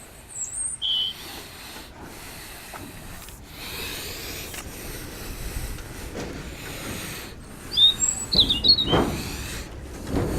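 Scrubbing on greenhouse panes, a rough rubbing sound, with a few bumps near the end. Small birds chirp briefly about half a second in and again around eight seconds.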